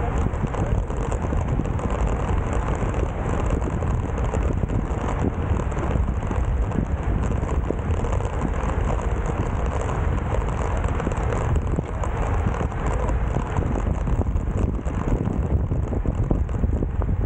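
Steady wind noise rushing and buffeting over an action camera's microphone while riding a road bike at speed.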